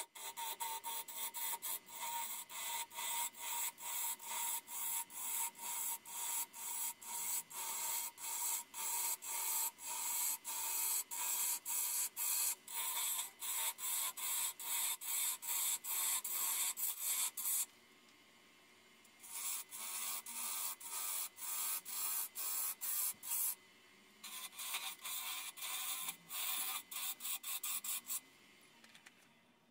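Ball gouge cutting a spinning yew blank on a wood lathe: a hissing cut that pulses about two to three times a second as the tool is worked, breaking off twice briefly and stopping shortly before the end.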